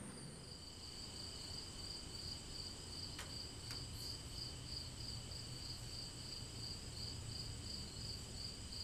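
Crickets chirring steadily, several at different pitches, the loudest a fast pulsing trill. Two faint clicks a few seconds in.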